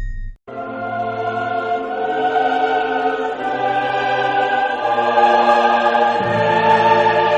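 Choir singing long held chords over a lower bass part, used as a comedy sound effect; it starts after a brief cut about half a second in.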